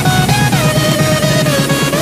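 Background music: a melody that steps and slides between notes over a fast, steady pulsing beat.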